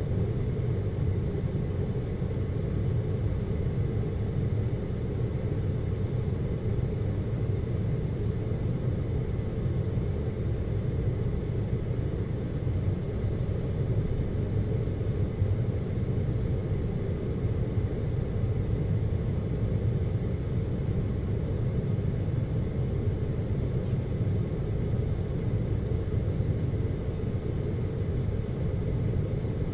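Steady low rumble heard inside a moving Seorak cable car cabin as it travels along its cable, with a faint thin whine above it.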